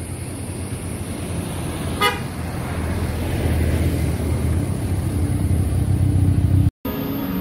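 A motor vehicle approaching on the road, its engine rumble growing steadily louder, with one short horn toot about two seconds in. The sound cuts off suddenly near the end.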